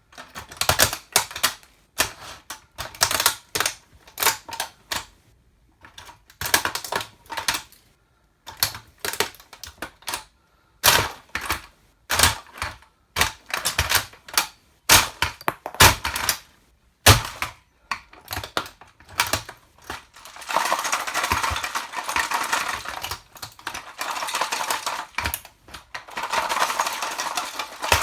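A toy car being crushed under 8-inch platform high heels: irregular clusters of sharp cracks and clicks, turning to a denser, continuous crackling from about two-thirds of the way in.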